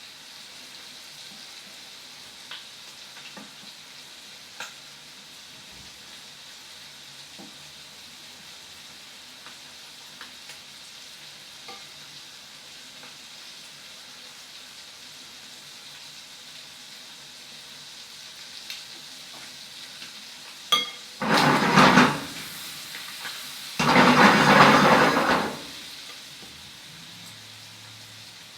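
Faint steady sizzling of food frying in a pan, with a few light clicks. About three-quarters of the way in come two loud bursts of noise, the second longer.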